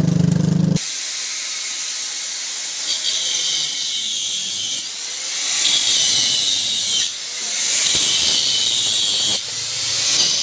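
A scooter engine running for under a second, then an electric angle grinder cutting into a steel exhaust silencer: a loud high hissing grind that swells and eases in several passes with short breaks.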